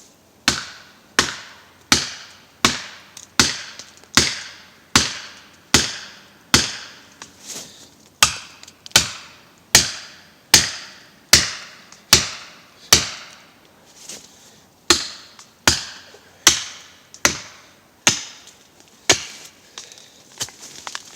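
Axe chopping into a pine trunk: a steady run of about 26 sharp strokes, one roughly every 0.8 seconds, each a quick knock that dies away fast.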